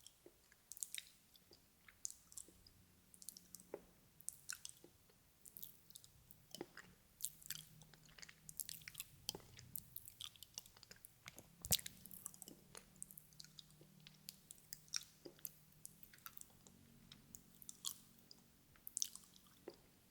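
Close-miked ASMR mouth sounds: wet lip smacks and tongue clicks in a rapid, irregular scatter of small sharp clicks, with one louder click about halfway through.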